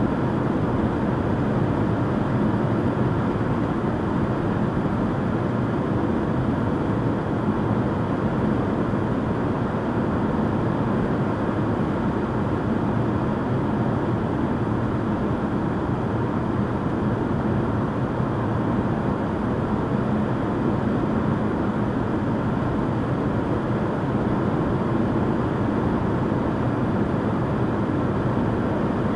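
Steady road and engine noise inside a vehicle's cabin as it cruises along a paved highway, tyres running on asphalt at an even speed.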